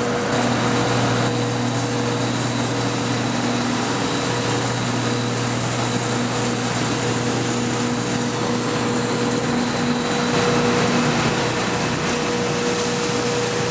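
Steady drone of aircraft ramp machinery beside a parked airliner: a constant hum and a steady whine over an even rushing noise.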